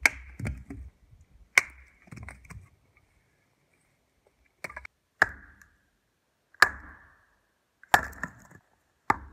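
Hatchet chopping kindling on a wooden stump block: about six sharp chops a second or more apart, with a pause of about three seconds after the second.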